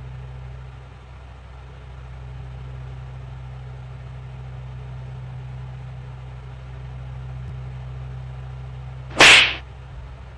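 A steady low hum, then about nine seconds in a single loud, sharp slap of a hand on skin, the slapping prank's blow.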